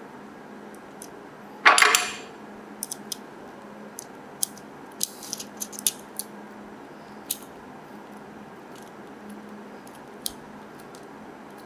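Small clicks and clinks of metal screws, a screwdriver and hard plastic parts as a Tamiya Mini 4WD kit car is assembled by hand. There is a short louder clatter about two seconds in, then scattered light clicks as a screwdriver drives a small screw into the chassis at a roller.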